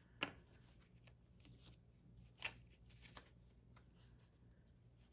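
Faint rustles and crisp flicks of Canadian polymer banknotes being handled, sorted and laid down, with two sharper snaps, one just after the start and one about halfway through.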